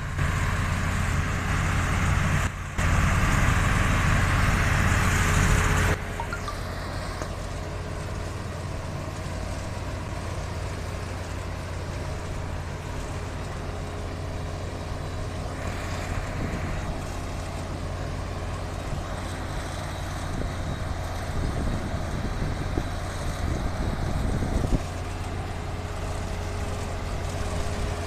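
CRF self-propelled tomato harvester at work, its engine and conveyors running with a steady drone, mixed with the engine of a lorry moving alongside. The sound is louder and harsher for about the first six seconds, then settles to an even level.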